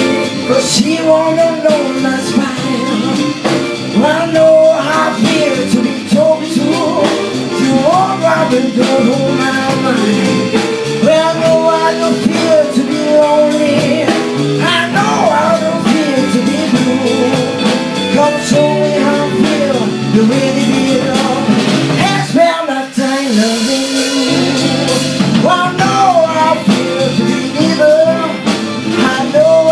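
Live band playing, with a woman singing lead into a microphone over electric bass, guitars and drums.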